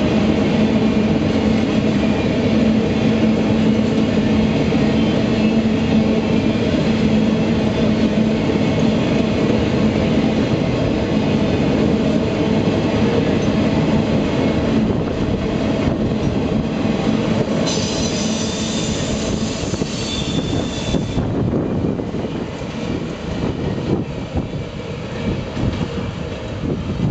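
Freight train cars rolling past close by: a steady rumble of wheels on rail with a low hum, from empty gondolas and then the flatcars of a CSX rail train. A high-pitched wheel squeal of several tones joins for about three seconds past the middle. The sound eases a little near the end as the last car, a rail unloader, goes by.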